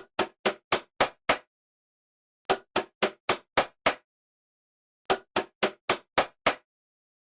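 Hammering sound effect: three runs of six quick, sharp knocks, about four a second, with silence between the runs.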